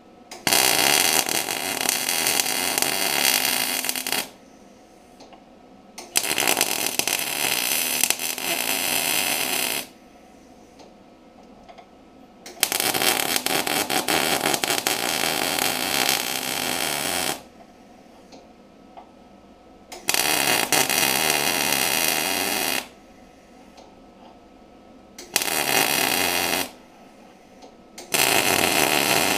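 Arc welding a steel bracket into a car's engine bay: the welding arc crackles and hisses in six runs of one to five seconds each, with short pauses between them.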